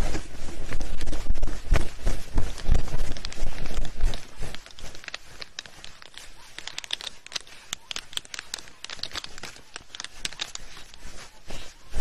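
A pair of black storks mating on their stick nest: heavy wing flaps thump and rustle together with feathers and twigs during the first few seconds. Then comes a quick run of sharp clicks and taps that grows denser toward the end.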